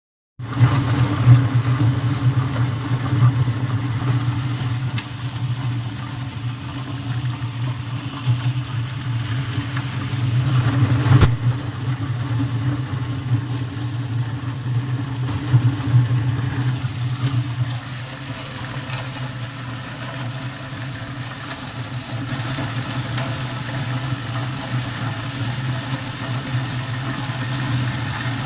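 Corn-shelling machine running with a steady low hum. A single sharp knock about eleven seconds in.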